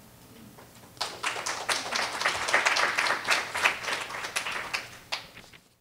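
A small audience applauding, starting about a second in and tailing off, then the sound cuts off suddenly.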